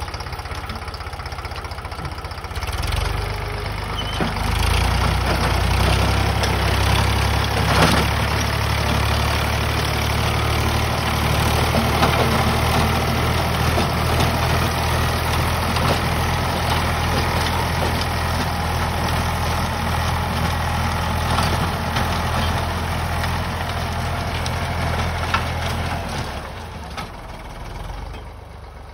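Eicher 548 tractor's diesel engine running steadily under load while its rotavator churns through the soil. The engine gets louder about two to three seconds in and drops away near the end.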